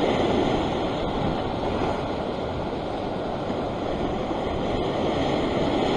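Ocean surf breaking and washing over a rock ledge: a steady rush of whitewater that swells a little near the start and again near the end.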